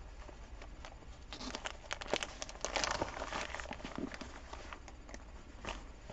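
Rustling and crinkling of a nylon Fox Outdoor buttpack and the items being stuffed into its side pocket, with scattered small clicks and scrapes as hands work the pocket and its strap. The handling is irregular, busiest between about one and three seconds in.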